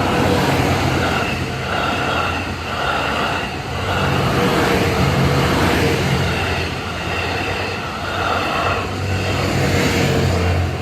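87 series Twilight Express Mizukaze diesel-hybrid train running past at close range: a loud, continuous rumble of wheels and running gear on the rails, swelling and easing every couple of seconds as the cars go by.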